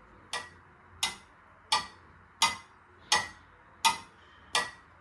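Clock ticking: seven sharp, even ticks about 0.7 s apart, played loud through a speaker.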